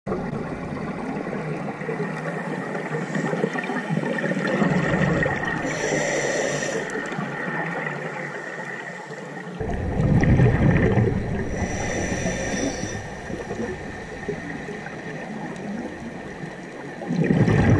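Underwater sound picked up by a scuba diver's camera: a steady wash of water noise, with a scuba regulator's hissing breath drawn in twice and two louder bubbling rumbles of exhaled air, one about ten seconds in and one near the end.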